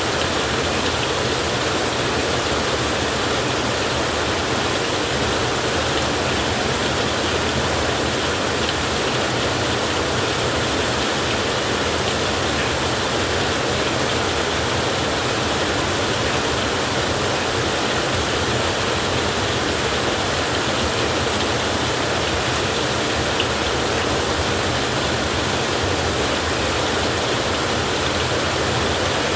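Heavy rain falling steadily, an even unbroken hiss with no thunder.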